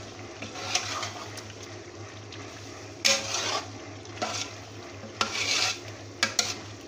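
Steel ladle stirring beef pieces through thick masala in a large metal pot, with irregular scraping strokes against the pot, the strongest about three seconds in and around five seconds in. A steady frying sizzle runs underneath as the beef is browned in the masala.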